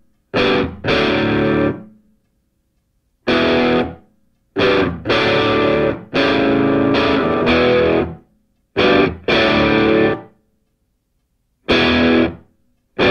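Background music: a distorted guitar plays chords in short stop-start stabs, each cut off sharply by a moment of silence.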